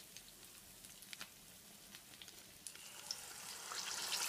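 Hot frying oil crackling faintly with scattered pops, then a scoop of yeasted oliebollen batter goes into the oil near the end and a sizzle rises and grows loud as the dough starts to deep-fry.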